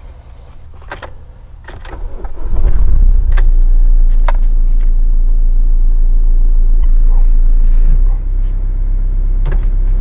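Ford Transit van's diesel engine started with the key, heard from inside the cab: a few clicks and key jingles, then the engine catches about two and a half seconds in and runs steadily at idle.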